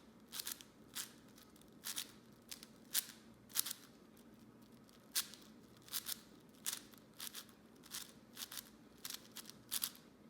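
Plastic puzzle cube layers being turned by hand in a quick, irregular run of short clicking swishes, about two a second, as a parity algorithm is executed.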